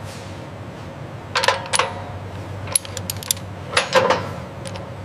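Light metal parts or tools clinking and tapping in small clusters of sharp clicks, each with a brief ring, over a steady low hum.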